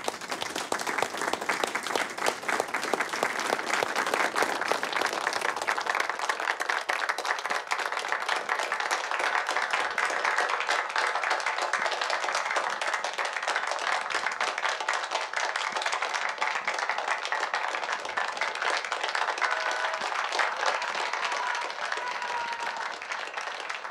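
Crowd applauding, many hands clapping in a dense, even patter that starts suddenly.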